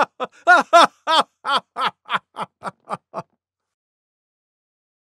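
Laughter: a run of 'ha-ha' bursts, about three or four a second, growing quieter and stopping a little after three seconds in.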